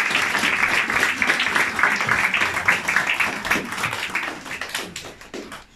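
Audience of parents applauding, a dense patter of many hands clapping that thins out to a few last claps near the end and stops.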